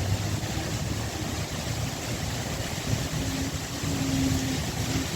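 Steady hiss of heavy rain over a low engine rumble, with a steady drone coming in about three seconds in.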